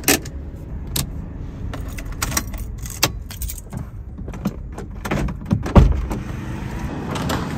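Keys jangling and small clicks and clinks inside a Suzuki car as things are handled at the centre console, then the driver's door is opened from inside with a heavy thump a little before six seconds in.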